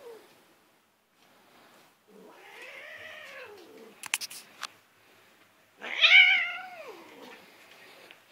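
Domestic cat giving two long, drawn-out meows that rise and then fall in pitch, the second louder than the first. She is protesting at being pestered. A few short clicks come between the two calls.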